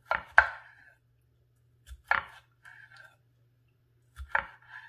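An 8.5-inch Dalstrong Shogun Series X kiritsuke knife slicing bell pepper into sticks, knocking sharply on a wooden cutting board: a pair of quick strokes at the start, then single strokes about two seconds in and near the end.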